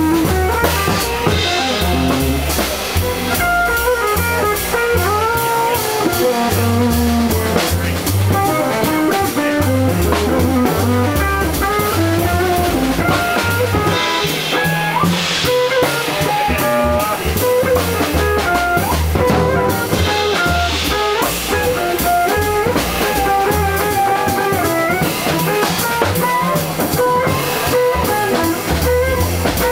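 Live jazz combo playing: an electric guitar runs a single-note melody line over a walking bass and a drum kit with cymbals.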